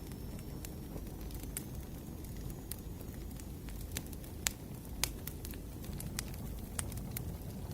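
Firewood burning, crackling with scattered sharp pops over a low steady rumble; the loudest pops come about four and a half and five seconds in.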